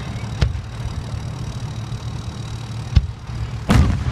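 Fireworks shells bursting: a sharp bang about half a second in, another about three seconds in, and a heavier, longer boom near the end, over a steady low rumble.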